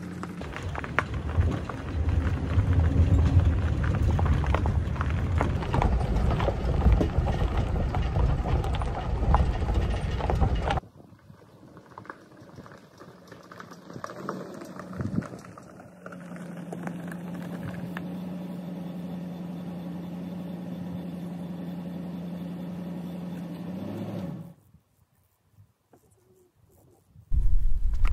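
Road and engine noise of a moving vehicle, a loud steady rumble that cuts off suddenly about eleven seconds in. Quieter sounds follow, then a steady low hum, a few seconds of near silence, and loud noise again at the very end.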